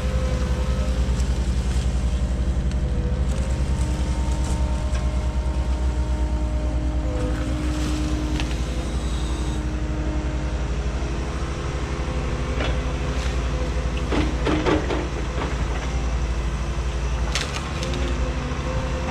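Cat 314E excavator's diesel engine running steadily under load, with a steady whine that shifts in pitch now and then. Several knocks and clatters come in the second half.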